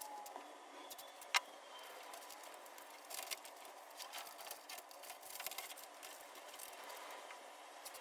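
Faint scattered clicks and light rustling from handling work, with a sharper click about a second and a half in, over a low steady hiss.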